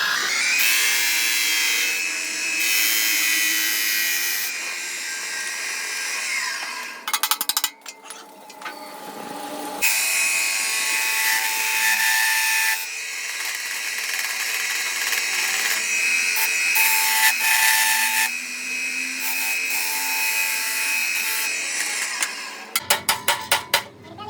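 Power tools working metal in a workshop: a series of steady, high, whining stretches that change abruptly every few seconds. Rapid runs of clicks come about 7 seconds in and again near the end.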